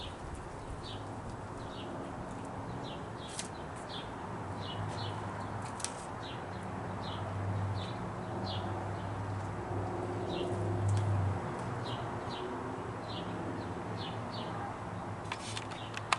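A small bird chirping over and over, a short high chirp every half second to a second, over a low steady hum that swells twice.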